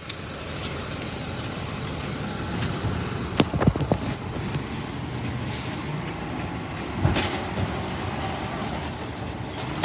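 Automated side-loading garbage truck's engine running steadily, with a cluster of sharp clanks about three and a half seconds in and another near seven seconds as the arm handles a cart.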